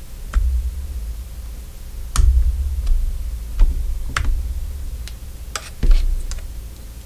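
Sharp plastic clicks and snaps of a Canon 60D's battery compartment door being worked off its hinge, about nine clicks at uneven intervals, with dull handling bumps against the camera body under the loudest ones.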